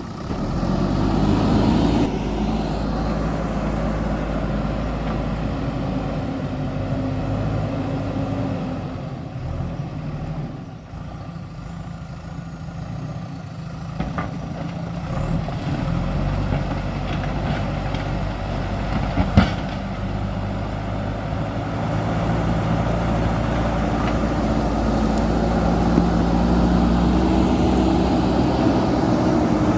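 JCB backhoe loader's diesel engine working, easing to a lower, quieter note for several seconds about a third of the way in, then building up again. A sharp knock sounds about two-thirds of the way through.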